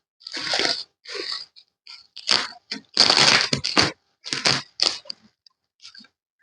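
Packaging around a sewing machine being handled and pulled apart: irregular crinkling and scraping bursts, the longest and loudest lasting about a second around three seconds in.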